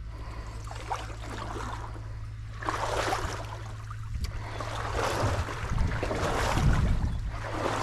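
Stream water sloshing and rushing, with wind buffeting the microphone; it swells about three seconds in and again from about five seconds on.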